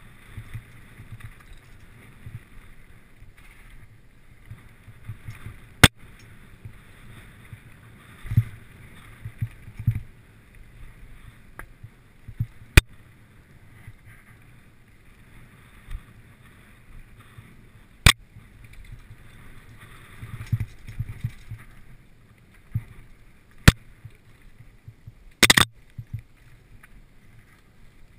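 Mountain bike ridden fast down a dirt singletrack: a steady rumble of tyres on dirt and wind on the microphone, with irregular low thumps over bumps and about five sharp clicks from the bike along the way.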